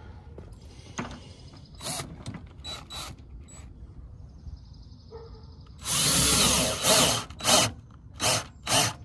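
Cordless drill driving the threaded rod of a glue-pull dent puller, tightening it to pull a glued tab and draw the dent out of a car's quarter panel. After a few light clicks there is one run of about a second, then four short bursts of the drill.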